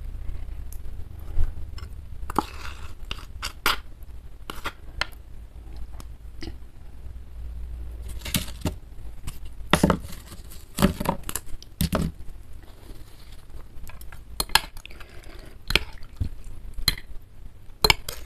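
Tableware being handled over a bowl of bakso soup: irregular clinks, taps and knocks of a metal spoon and fork and a plastic cup against the bowl, a little busier in the middle.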